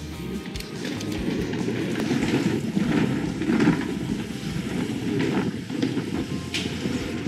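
Mountain bike ridden fast along an indoor flow trail: tyres rolling over the track surface in a steady rumble that swells in waves through the berms, with light rattles from the bike and air rushing past the camera microphone.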